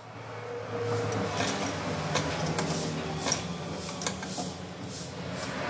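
Hands working plastic water-line fittings and tubing under a kitchen sink: a string of small, irregular clicks and taps over a faint low hum.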